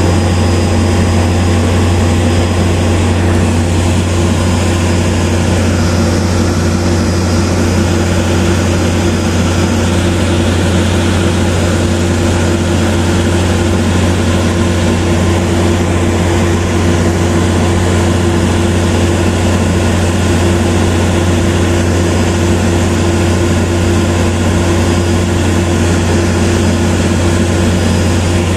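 Diesel engine of a Philippine National Railways train running steadily, a loud, even, low-pitched drone with steady humming tones above it that holds without change.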